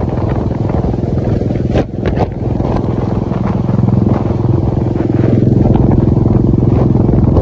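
Royal Enfield motorcycle engine running steadily at road speed, heard from the rider's seat. There is a brief drop with a couple of knocks about two seconds in, and it runs louder from about four seconds in.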